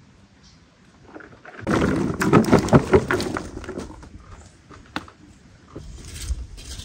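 Chopped quince pieces tipped from a plastic bowl into a wide metal pan of liquid, a loud splashing, clattering pour lasting about two seconds. Afterwards a metal skimmer stirs the fruit with a few soft knocks and scrapes.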